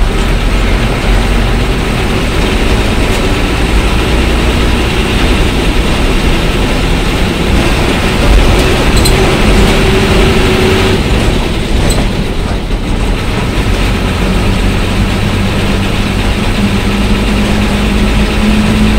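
Bus diesel engine running loudly under way, heard from the cab right beside the engine cover, its note rising and falling with engine speed.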